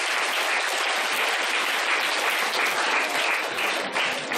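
An audience of schoolchildren applauding: dense, steady clapping that starts to thin into separate claps near the end.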